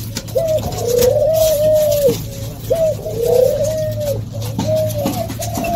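Several captive doves cooing at once, their short rounded coos overlapping and following one another without a break.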